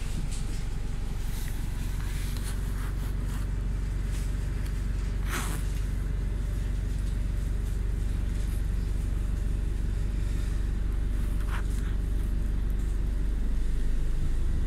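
Steady low rumble of a moving road vehicle heard from inside the cabin: engine and road noise. Two brief higher hissing sounds come about five and twelve seconds in.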